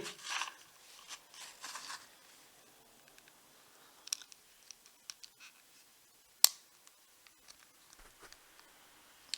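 A retractable smart body tape measure being handled during a measurement: faint rustling and scattered small clicks, with one sharp click about six and a half seconds in.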